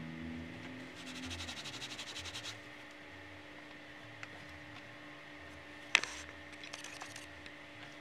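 Quick back-and-forth rubbing of a cloth on leather, working in burnishing gum, for about a second and a half; about six seconds in comes a single sharp knock, followed by a short rattle.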